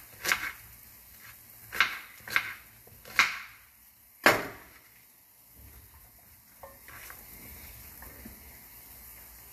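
Kitchen knife chopping apple on a plastic cutting board: about five sharp, irregular knocks of the blade on the board in the first half, the last the loudest, then it goes quiet but for faint handling.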